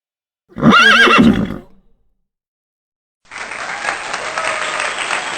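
A horse whinnying once, about a second long, with a quavering, up-and-down pitch. About three seconds in, a steady noisy sound with faint tones starts and keeps going.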